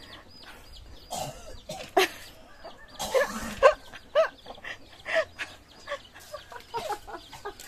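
Domestic yard animals making a string of short, arching calls at irregular intervals.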